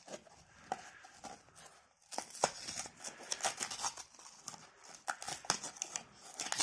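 Foil inner seal being peeled and torn off the mouth of a plastic powder tub: irregular crackling and tearing, mostly from about two seconds in.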